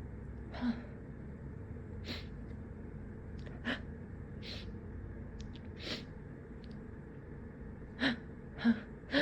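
A person's short, sharp breaths every second or so, then three quicker, louder gasping catches close together near the end as a sneeze builds up.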